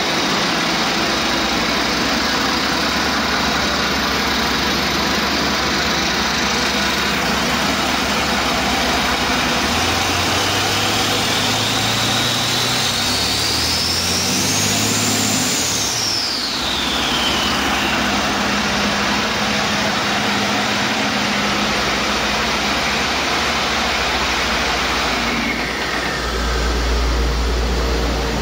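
2003 International DT466E inline-six turbo diesel running on a test stand, idling, then revved about ten seconds in: the turbocharger whine climbs to a high pitch and falls back as the engine returns to idle some seven seconds later. It is a good used engine that the seller says runs excellent.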